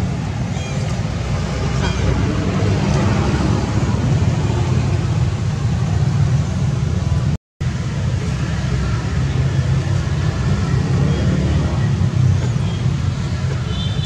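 Steady low rumble of outdoor background noise, broken by a brief moment of silence about halfway through, with a few faint high chirps near the end.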